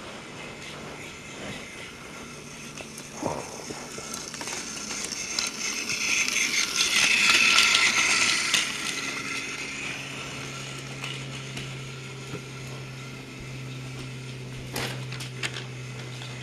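Battery-powered Thomas the Tank Engine toy train's small motor whirring as it runs on plastic track, with light clicks from the wheels. It gets louder toward the middle as the train comes up close, then eases back to a steady whir.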